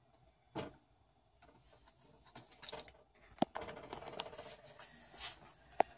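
A ladle scooping gumbo and spooning it into a china bowl: soft scraping with a few light clinks, the sharpest near the end.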